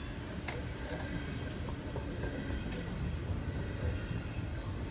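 CSX freight train rolling past with a steady low rumble from its cars, with a few sharp clicks.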